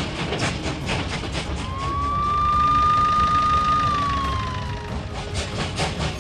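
Police car siren: one wail that rises, holds for about two seconds and falls away, over a low rumble and a steady rapid clicking.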